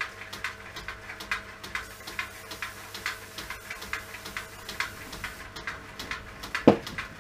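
Belt drive turning a motorcycle wheel on a milling-machine rotary table under power: a steady electric motor hum with a regular tick about two to three times a second as the drive goes round, and a short falling squeak near the end.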